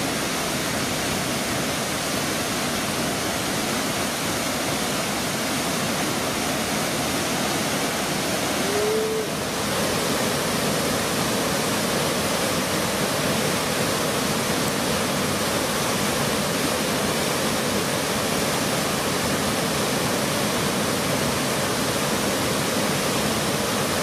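Cauldron Falls, a waterfall on Walden Beck, pouring steadily into its pool: a loud, even rush of falling water.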